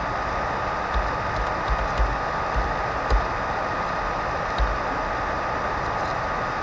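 Computer keyboard keystrokes, a few scattered irregular key presses, over a steady recording hiss with a thin steady tone.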